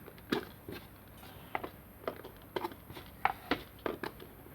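Small irregular clicks and taps as tweezers lift parts out of a battery wall clock's movement, about a dozen light knocks, a few with a brief tiny ring.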